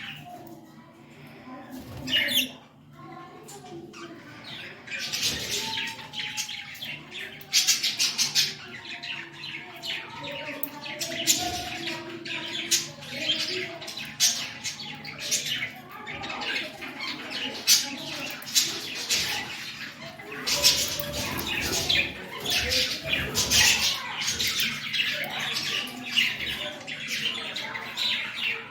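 Pet budgerigars chattering: a steady stream of short, high chirps that gets busier about five seconds in.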